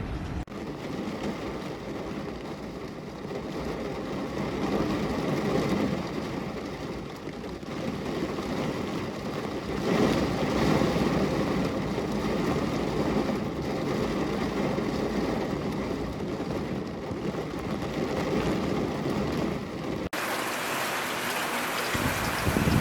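Steady rain, a dense even hiss that swells and eases a little. About twenty seconds in it cuts abruptly to a brighter, hissier rain.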